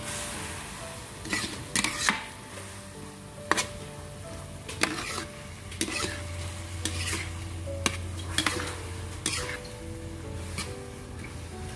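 Spatula stirring and scraping shredded coconut in sugar syrup in a pan as it cooks down into candied coconut. The syrup sizzles steadily, with irregular scrapes and knocks of the spatula against the pan about once a second.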